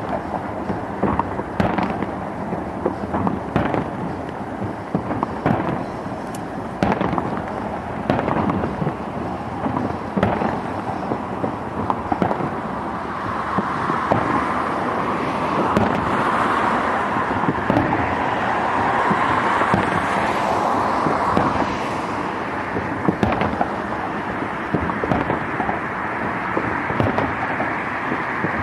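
A fireworks display: shells bursting in a rapid string of bangs, with a denser continuous stretch of bursts and crackle in the middle.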